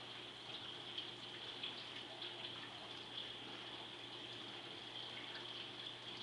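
Faint, steady trickling hiss of a saltwater reef aquarium's circulating water, with a low hum underneath and a few small ticks.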